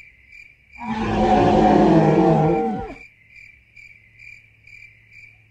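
Crickets chirping steadily, about two chirps a second. About a second in, a loud, drawn-out roar lasts about two seconds and falls in pitch as it ends.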